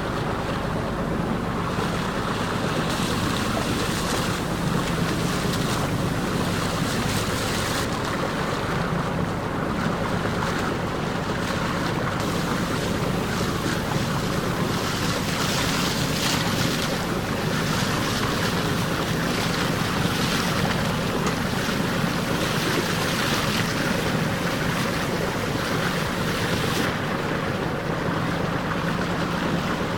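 Boat under way with its engine running steadily at a low hum, water rushing along the hull and wind gusting on the microphone.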